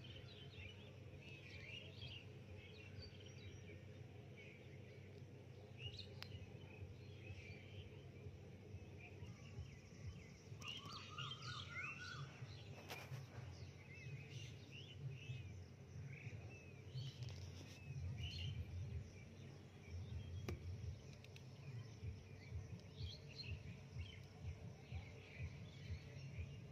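Faint garden ambience with scattered small-bird chirps and twitters, including a quick run of repeated chirps about ten seconds in, over a low rumble that turns uneven and pulsing in the second half.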